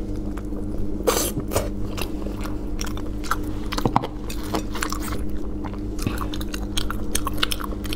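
Close-up chewing of sea snail meat in a spicy sauce: wet mouth and lip smacks and many short sharp clicks.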